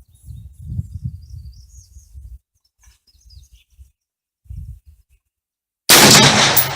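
A single AR-15 rifle shot in 6x45 about six seconds in, sharp and loud and then dying away: the fifth and last shot of a five-shot group. Before it there is a low rumble and faint bird chirps.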